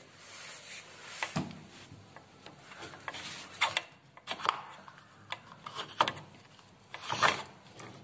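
The plastic drain-pump filter cap of an LG front-load washer being unscrewed by hand: irregular scraping and rubbing of plastic on plastic, with scattered clicks, loudest about seven seconds in.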